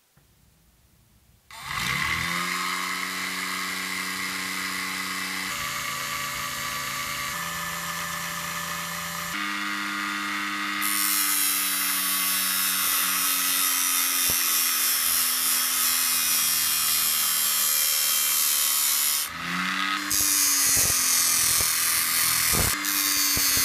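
Small battery-powered motor of a homemade disc sander switches on about a second and a half in and runs with a steady whine. From about eleven seconds in, wood pressed against the spinning sandpaper disc adds a loud sanding hiss. Near twenty seconds the motor briefly drops in speed and picks up again while a wooden stick is sanded.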